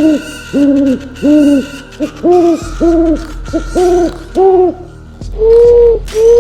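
An owl hooting: a series of about eight short, rounded hoots, roughly two a second, then two longer, slightly higher hoots near the end.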